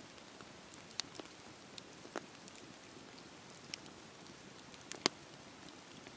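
Wood fire crackling: a soft steady hiss with scattered sharp pops, the loudest about a second in and about five seconds in.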